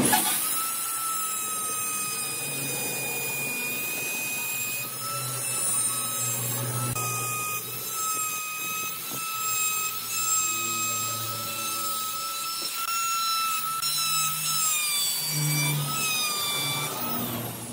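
Handheld electric die grinder with a pointed carbide burr carving wood: a steady high motor whine over the rasp of the cutting, dipping briefly in pitch several times as the burr bites into the wood.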